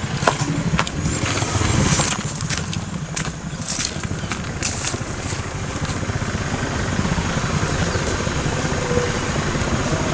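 An engine running steadily with a low, pulsing hum. Sharp clicks and rustling from camera handling come through during the first half, then die away.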